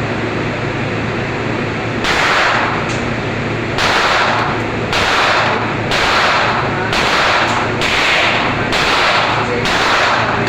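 Gunfire at a shooting range: a run of about nine shots, roughly one a second, each starting sharply and dying away within a second, over a steady background hum.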